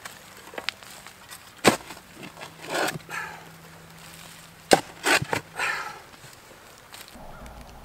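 A hand digging tool cleaning out a post hole. It strikes into the soil twice, about three seconds apart, and each strike is followed by scraping and loose dirt.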